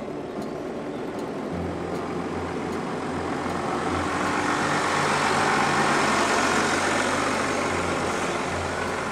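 Mercedes-Benz G-Class SUV driving slowly over rough dirt, its engine running low and steady under the noise of its tyres on the track. It gets louder as it passes directly overhead, loudest about halfway through, then eases off.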